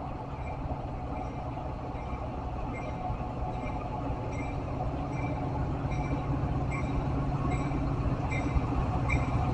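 Metra commuter train's diesel locomotive approaching, its low rumble growing steadily louder, with its bell ringing about once every 0.7 s.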